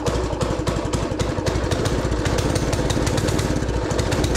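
Small four-stroke go-kart engine running steadily, with an even, rapid firing beat. It has just been relieved of overfilled crankcase oil: it sounds a little better but still runs poorly.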